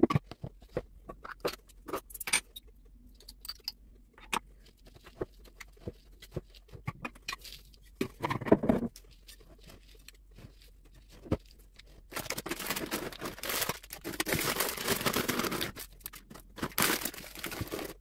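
Metal spoon clinking and scraping in a bowl as an energy-ball mixture of oats, nut butter, dried fruit and seeds is tipped in and mixed: scattered clicks and taps at first, then, about twelve seconds in, several seconds of dense scraping and rustling as the stiff mixture is stirred hard.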